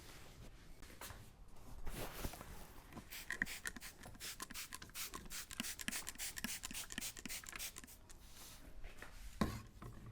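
Hands massaging a person's head: quick rubbing, scratching and tapping strokes on the hair and scalp, coming thick and fast through the middle, with one sharper knock near the end.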